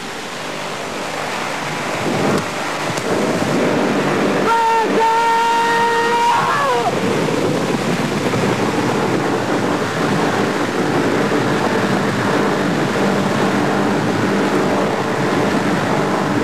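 Storm effects: wind and rushing, crashing water in a loud, steady rush that builds over the first couple of seconds. About four seconds in, a long shout rises above it for two seconds and falls in pitch as it ends.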